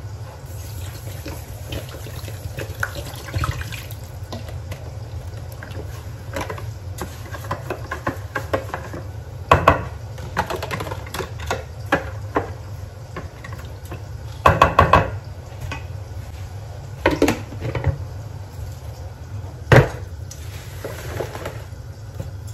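Water poured from a plastic bottle over couscous in a glass bowl, then a wooden spatula stirring the wet grains to moisten them before steaming. Several sharp knocks of utensils and bowls come in the middle and near the end, over a steady low hum.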